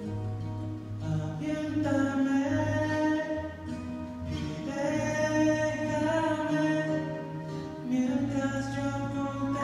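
Live rock band and symphony orchestra playing together, with a man singing over long held notes and a bass line.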